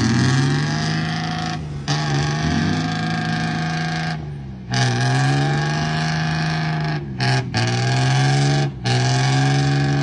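Diesel dump truck engine revving high and held under heavy load. Its pitch sags and climbs back, and it is broken by several short, abrupt gaps.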